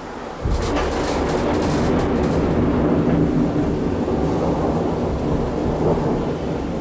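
Close thunder: a sudden crack about half a second in, crackling for about two seconds, then a long, loud low rumble that rolls on.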